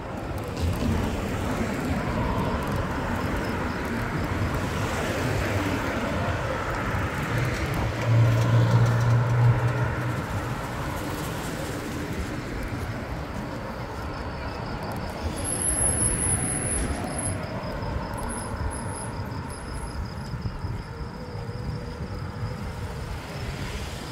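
Wind rushing over the microphone and road noise from a moving bicycle, with car traffic around it. About eight seconds in, a louder low drone swells for a couple of seconds.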